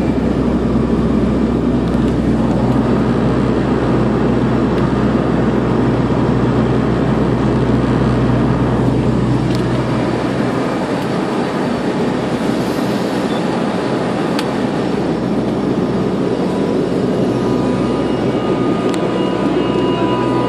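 Turboprop airliner's engines and propellers droning steadily, heard from inside the passenger cabin.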